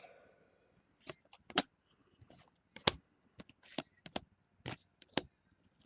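Baseball trading cards handled by hand while being flipped through a pack: a string of light, irregular clicks and short card-on-card slides.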